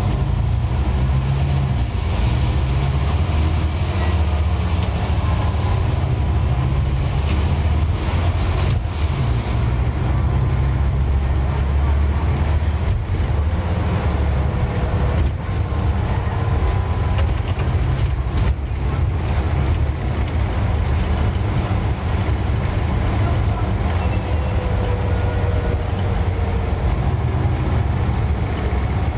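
Scania N94UD OmniDekka double-decker bus running under way, heard from the upper deck: a loud, steady low diesel rumble. A thin drivetrain whine rises slowly in pitch twice in the second half.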